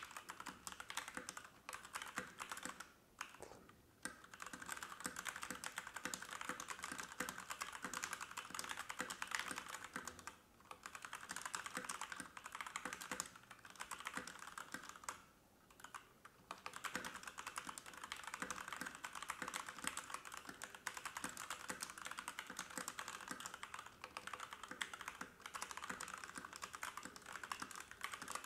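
Fast continuous typing on a Rexus Legionare MX20 Pro full-size mechanical keyboard with red linear switches: a steady stream of crisp key clacks, broken by a few brief pauses.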